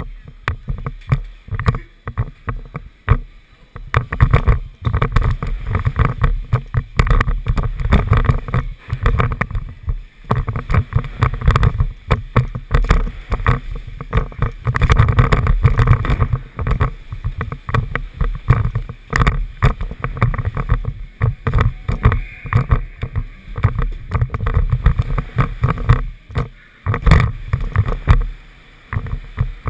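Wind buffeting the microphone of a helmet camera while riding a BMX bike, a gusty low rumble that rises and falls with speed, mixed with tyres rolling over wooden ramps and frequent sharp knocks.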